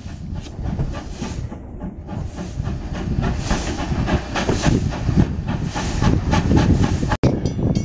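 Steam locomotive W22 working a passenger train: rapid, steady exhaust chuffing over a heavy low rumble and hiss. The sound breaks off sharply near the end.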